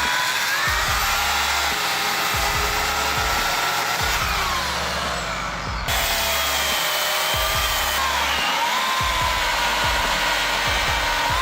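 Electric chainsaw motor whining, its pitch sagging and recovering as it cuts, over background music. The sound changes abruptly about halfway through, where the footage is cut.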